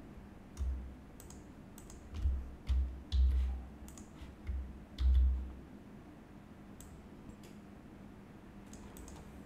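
Scattered clicks of a computer mouse and keyboard while slides are edited, with several dull low thumps in the first five seconds.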